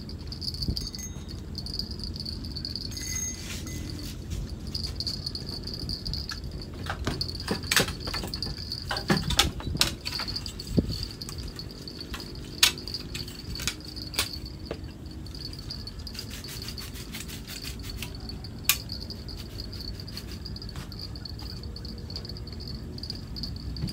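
Night insects chirring steadily at one high pitch. A scatter of sharp clicks and knocks comes through the middle stretch.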